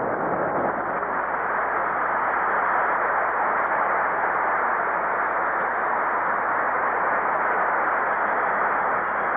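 A steady, even wash of noise with no voices and no distinct events, holding the same level throughout.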